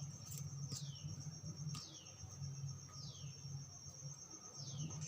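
Faint outdoor ambience: a steady high-pitched pulsing trill, typical of insects, with a falling chirp every second or two and a low rumble underneath.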